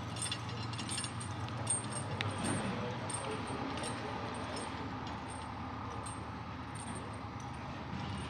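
A truck-mounted crane's engine running steadily as it lifts a load, with scattered light metallic clinks over it.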